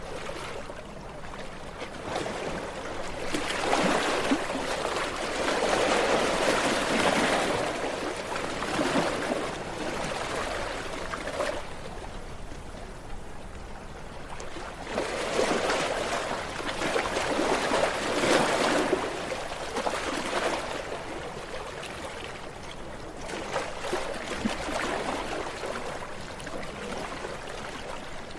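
Ocean waves washing onto a shore, the sound of surf swelling and fading as each wave breaks and runs up, with two larger surges and a few smaller ones.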